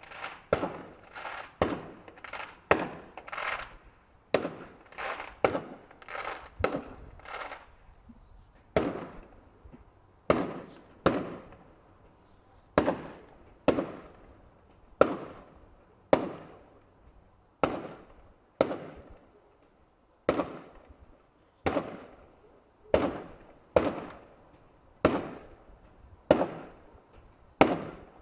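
Fireworks bursting in a long series of sharp bangs, roughly one a second, each trailing off in a rolling echo.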